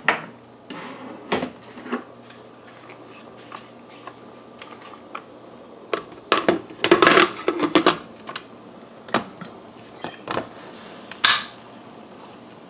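Aluminium pressure cooker lid being set on the pot and locked shut: a string of metal clicks and knocks, with a busy clatter of the handle and lock a few seconds in the middle.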